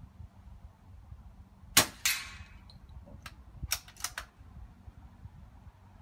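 A PCP air rifle fires once, and a fraction of a second later the pellet strikes a metal target with a short ring. About a second and a half after that come four sharp clicks in quick succession.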